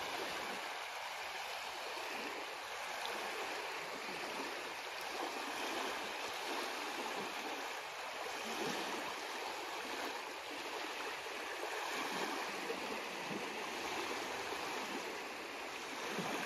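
Small waves washing steadily against a reservoir shore, an even wash of water with no single loud event.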